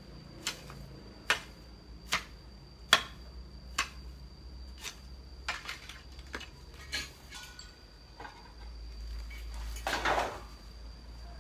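A long-handled garden hoe chopping into weedy ground, about one sharp strike a second for the first five seconds, then softer knocks and scrapes. Near the end a louder rustle of weeds being pulled up by hand.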